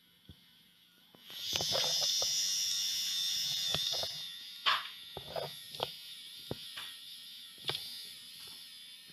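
Small battery-powered toy train motors whirring with a high buzz. The buzz starts about a second and a half in and fades after about four seconds. Scattered sharp clicks run through it.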